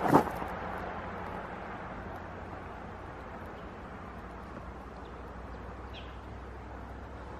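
Propane-fired foundry furnace burner running with a steady rushing noise and a low hum, after a single knock at the very start. A faint bird chirp comes about six seconds in.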